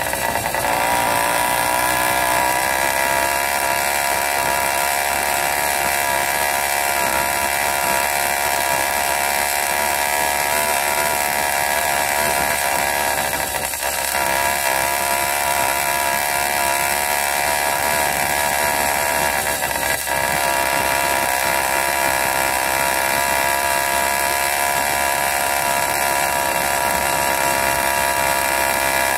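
80cc Wildcat P.K80 two-stroke engine running steadily while riding at cruising speed, its pitch wavering slightly. The engine note dips briefly twice, about 14 and 20 seconds in.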